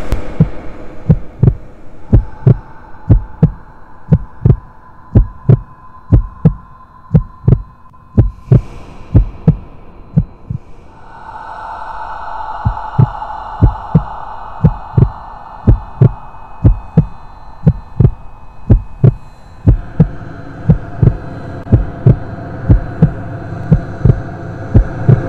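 Heartbeat sound effect: low double thumps repeating at a steady pace over a droning hum, as horror-film sound design. The hum grows louder about eleven seconds in and thickens again near the end.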